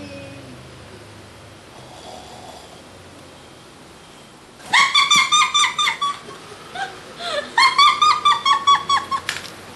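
A girl imitating a small dog: two bursts of rapid, high-pitched yipping barks, starting about halfway through and again near the end.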